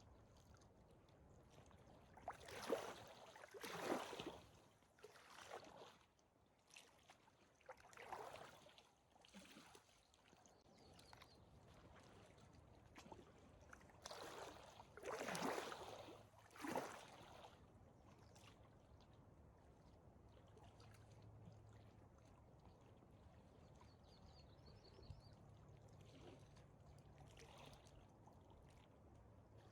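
Small waves lapping and splashing at a lakeshore in irregular swishes, several in the first half and quieter after that.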